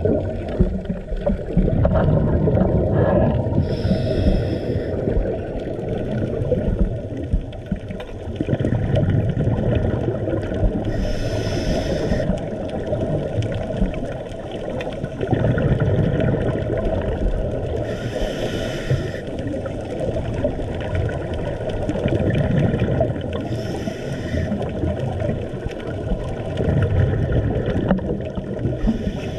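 Steady muffled underwater rumble of water against the camera housing. About every six or seven seconds comes a short burst of scuba breathing through a regulator.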